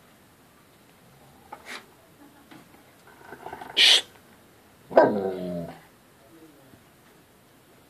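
Dogs, an Alaskan malamute and a German shepherd, face to face: one short, sharp bark a little before four seconds in, then about a second later a longer call with a clear pitch lasting under a second.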